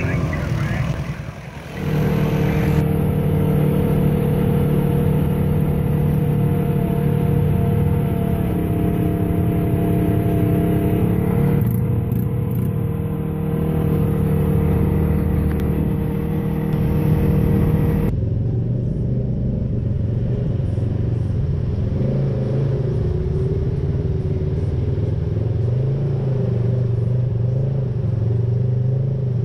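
Polaris RZR side-by-side engine running at low, steady throttle, heard from inside the cab, with a drone that shifts in pitch as it drives. The engine note changes abruptly about two-thirds of the way through.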